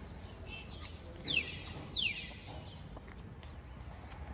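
A songbird calling: a few short high chirps, then two quick trills that each sweep down in pitch, about a second apart.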